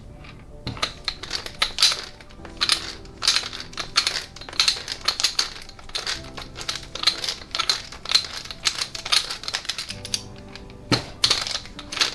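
Quick, irregular metal clicking and tapping, several clicks a second, from hand tools working a threaded steel stud.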